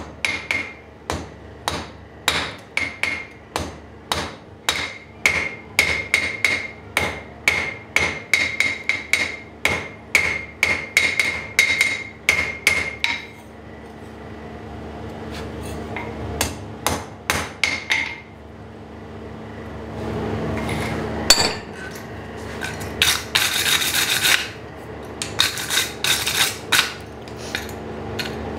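Hand hammer striking a glowing square steel bar on an anvil, about two to three blows a second, each with a ringing anvil tone. The blows stop partway, come back briefly, and give way to a steady rushing noise. Near the end a wire brush scrubs scratchily over the anvil and the steel.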